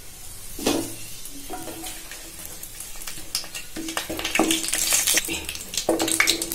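Whole spices (star anise, cinnamon, cardamom, cloves and a bay leaf) frying in hot sesame oil in a kadai with a light sizzle, while a wooden spatula stirs them, scraping and tapping against the pan. The sizzle grows louder about two thirds of the way in.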